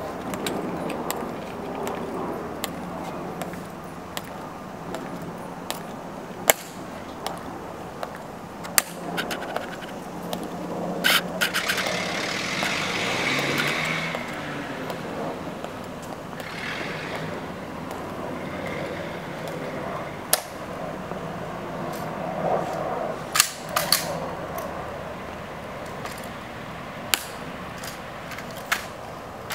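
Sharp, irregular clicks and taps of soldiers' dress shoes striking the stone plaza as the honor guard marches and halts, with a few louder clusters of clicks. A steady background hum runs underneath, and a brief louder rush of hiss comes about twelve seconds in.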